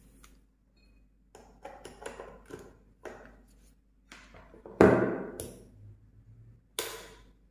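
A plastic hot glue gun and its power cord being handled on a hard tabletop: scattered light taps and rubbing, a louder knock about five seconds in as the gun is put down, and a sharp click near the end.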